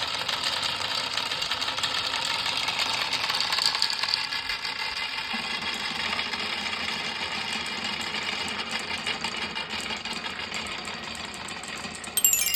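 Many marbles rolling and clattering along a marble run's track: a steady, dense rattle of fine clicks. Near the end, marbles start striking xylophone bars in a quick descending run of notes.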